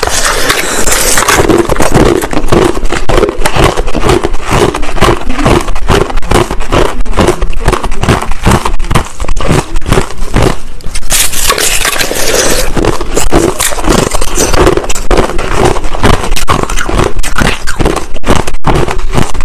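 Crushed white ice being bitten and chewed, a loud steady run of crunches several times a second.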